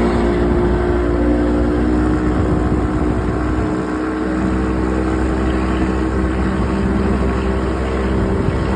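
OX66 outboard engine running steadily with the weird grinding noise that its owner has not traced: it came back after new spark plugs, though compression is good and the prop is not slipping.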